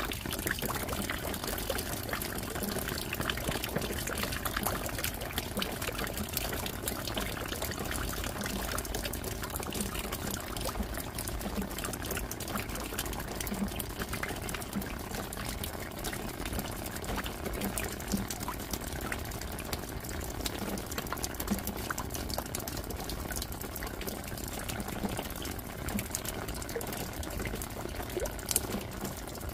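Steady rain falling, with many separate drops ticking over an even hiss.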